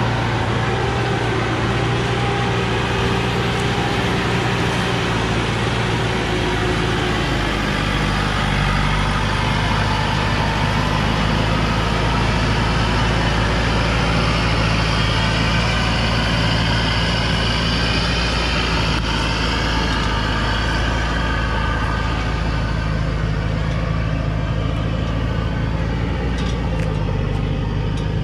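Diesel engine of a Thaco Forland truck loaded with acacia logs, running steadily under load as it climbs a dirt mountain track and drives past.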